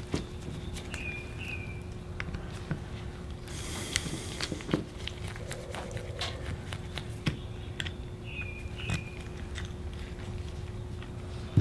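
Light clicks, taps and scrapes of a small screwdriver and metal parts against a Briggs & Stratton V-twin carburetor body as it is handled and taken apart, scattered at irregular intervals over a steady faint hum.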